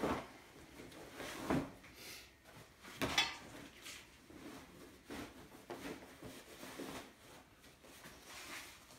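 Denim jeans being handled and turned inside out on a stone worktop: rustling of heavy fabric with a few short knocks in the first few seconds.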